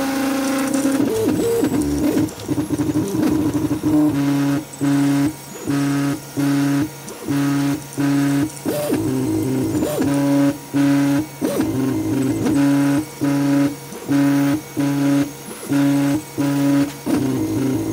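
3D printer stepper motors humming during a test print, a steady low tone that starts and stops in short moves roughly every half second, with a few brief rising and falling glides as the motors speed up and slow down.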